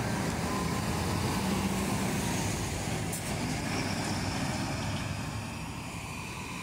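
Marcopolo intercity coach's diesel engine running as the coach passes close by and pulls away, the sound slowly fading near the end.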